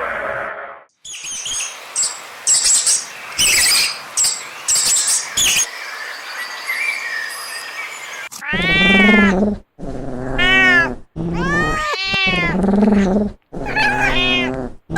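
Farm animal calls: a run of short high chirps, then about halfway through, five loud, long cries of about a second each that rise and fall in pitch.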